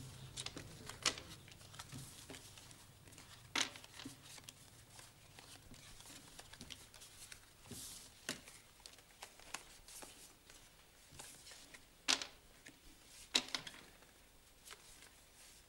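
Playing cards slapped down one at a time onto a wooden table, a sharp snap every few seconds, with light rustling of cards held in hand between the snaps.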